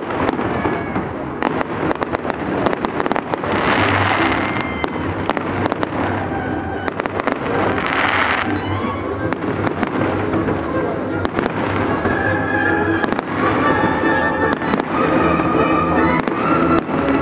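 Fireworks display: a rapid run of bangs from bursting shells, with two longer hissing crackles about four and eight seconds in. Music with held notes comes in about halfway through and plays under the bangs.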